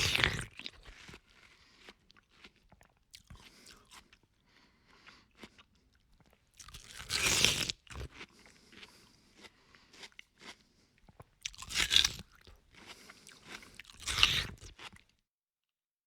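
A person biting into and chewing watermelon: four loud crunching bites, near the start, about seven, twelve and fourteen seconds in, with softer chewing clicks between them. It stops abruptly about a second before the end.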